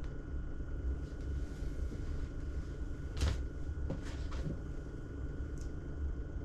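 Steady low hum of a small room's ventilation, with a few short clicks and knocks about three to four and a half seconds in, the first the loudest.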